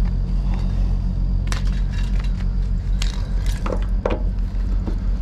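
An engine runs steadily at idle beneath a series of light metallic clanks and knocks from equipment being handled, most of them between about one and a half and four seconds in.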